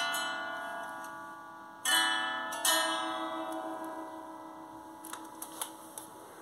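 Soft instrumental music: three plucked or struck notes, one at the start, two about two seconds in, each ringing on and slowly fading, with a few faint ticks near the end.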